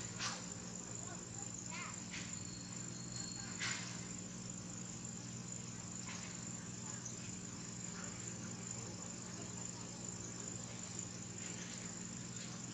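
Insects making a steady, high-pitched drone, with a few short rustling sounds in the first few seconds.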